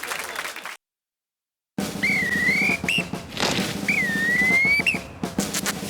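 Drum-driven music that cuts off into a second of silence, then returns with clattering percussion under a repeating swooping tone that dips and climbs three times.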